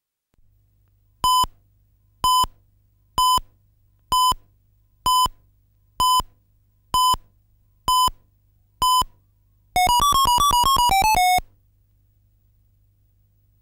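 Electronic countdown-leader beeps from a video tape: nine short identical beeps about a second apart, then a rapid warbling run of beeps for about a second and a half. A faint steady hum lies underneath.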